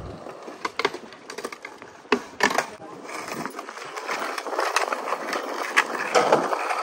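Skateboard wheels rolling over stone tile pavement: a few sharp knocks of the board first, then a rolling noise that grows louder from about three seconds in, broken by sharp clicks.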